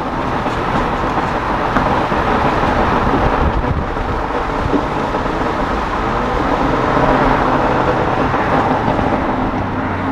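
Turbocharged 1.5-litre four-cylinder of a 2017 Honda Civic Si, with a catless downpipe and muffler delete, heard from inside the cabin as the car slows from highway speed. The exhaust note runs steadily under a constant rush of road and wind noise.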